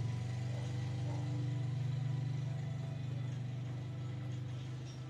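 A motor vehicle's engine running steadily, a low hum with a fine rapid pulse that comes up sharply at the start and holds.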